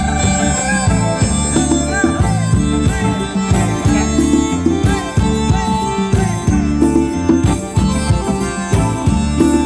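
Live Thai ramwong dance band music, loud, with a steady drum beat under a wavering melody line.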